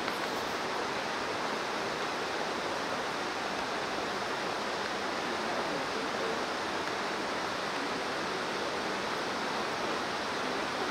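Steady, even rush of falling water, like a waterfall in a gorge, without any breaks.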